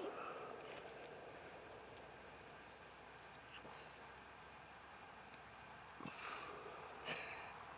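Insects in the surrounding vegetation, crickets or similar, keeping up a steady high-pitched buzz, with a couple of faint clicks near the end.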